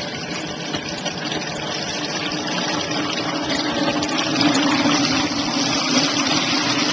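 Hot oil in a 4-gallon Bayou Classic propane deep fryer sizzling and bubbling, growing louder about four seconds in as a basket of wet, raw fries is lowered in and their moisture boils off. A steady low hum runs under the sizzle.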